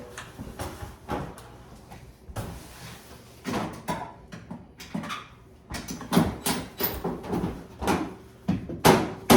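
Irregular knocks and bumps of hands and tools handling a range hood being set level, sparse at first and then coming faster and louder over the last few seconds.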